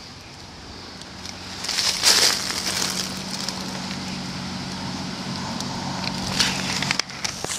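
Footsteps crunching on dry leaves and ground litter, with a louder crunch about two seconds in and another near the end, over a steady low hum.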